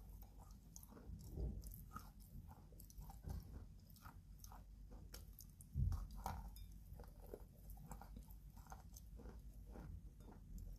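Close-up biting and chewing of a block of chalk: dry crunching and crackling in the mouth, with one louder bite about six seconds in.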